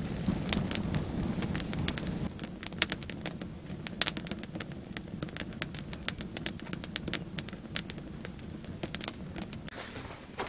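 Campfire of small dry branches crackling, with many irregular sharp pops and snaps.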